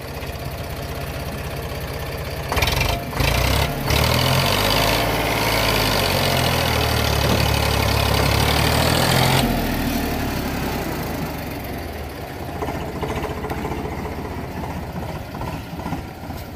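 Eicher 485 tractor's three-cylinder diesel engine working under load as it pulls a fully loaded trolley through rough ground. It grows louder about two and a half seconds in, holds there for several seconds, then eases off about ten seconds in.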